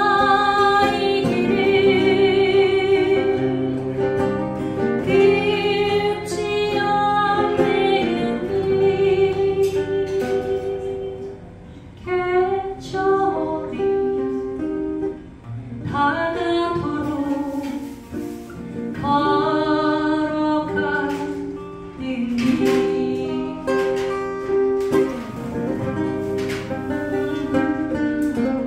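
A song sung to acoustic guitar accompaniment, with long held, wavering sung notes over the plucked guitar.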